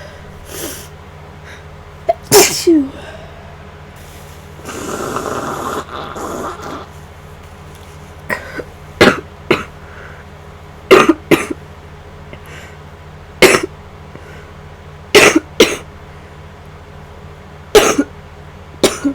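A woman with flu and nasal congestion sneezing again and again while inducing sneezes: about a dozen short, sharp, loud bursts every second or two, some in quick pairs. A longer stretch of rushing breath or sniffing comes about five seconds in.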